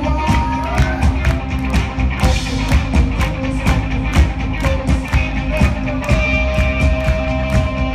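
A live rock band plays loudly, with a steady drum beat, electric bass guitar, and a male singer at a microphone.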